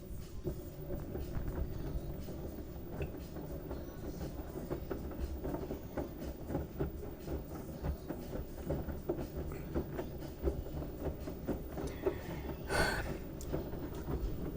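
LG washing machine running a load of wet towels: a steady low rumble with many irregular knocks from the tumbling drum. A brief hiss comes near the end.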